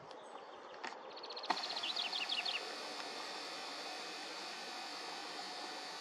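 Lesser spotted woodpecker giving a quick run of about eight short, high call notes about two seconds in, over a steady rushing background.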